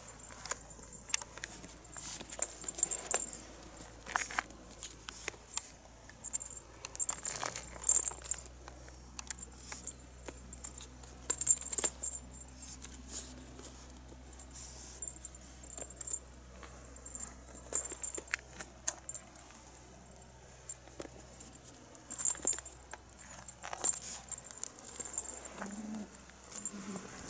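Kittens batting at a feather wand cat toy on concrete: scattered light clicks, taps and rattles at irregular intervals.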